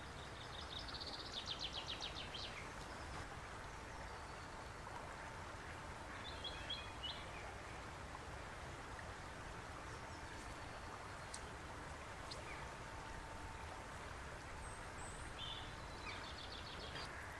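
River water flowing steadily over shallow stones, with small birds calling: a rapid trill about a second in and again near the end, and a short chirp around six seconds.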